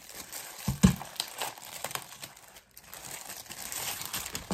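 Clear plastic wrapping crinkling as it is pulled off a photo album, with one dull thump about a second in.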